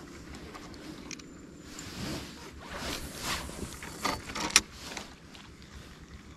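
Rustling and scraping of fishing gear being handled in a small inflatable boat, with a sharp click about four and a half seconds in.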